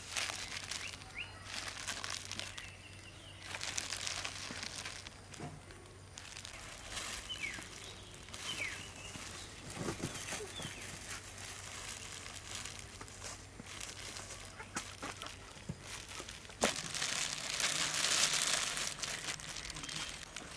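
Rustling and crinkling of plastic gloves handling soft vegetables, loudest for a couple of seconds after a sharp knock near the end. Chickens cluck with a few short chirps in the background.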